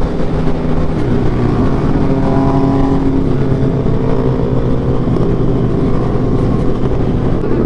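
Honda CBR1000RR SP's inline-four engine running steadily at high speed, around 180 km/h, with the pitch shifting slightly, over heavy wind rush.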